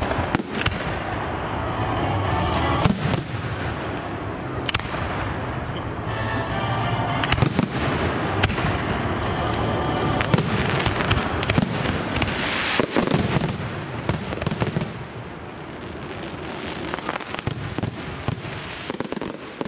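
Fireworks display: aerial shells bursting in rapid succession with dense crackling, the bangs overlapping thickly at first and thinning out and getting quieter after about fifteen seconds.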